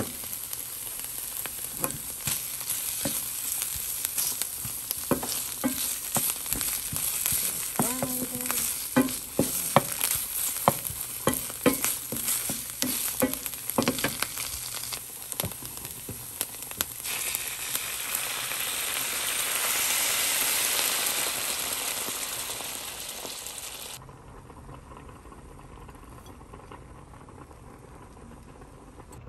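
Diced onions and tomato paste sizzling in a ceramic-coated frying pan, with a wooden spatula scraping and knocking against the pan as they are stirred. The sizzle swells for a few seconds after the stirring, then drops suddenly to a much quieter simmer near the end.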